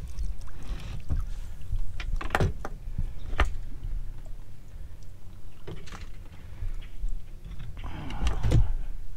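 Scattered knocks and thumps of fishing gear and hands at work, a few seconds apart, over a low steady rumble, as a hooked fish is brought in.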